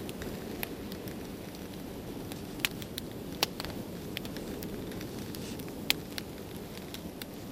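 Split-wood campfire burning and crackling, with scattered sharp pops over a steady low rush of flame.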